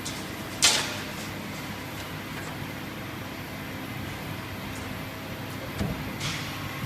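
Press brake (sheet-metal bending machine) running with a steady hum, with a sharp clack about half a second in and a softer clunk and low thumps near the end.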